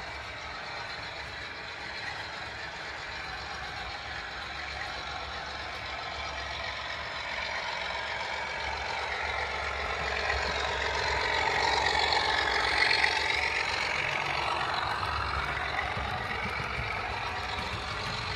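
Model railway diesel locomotive and coaches running along the track: a steady motor whine and rumble of wheels on rails that grows louder as the train approaches and is loudest about twelve seconds in.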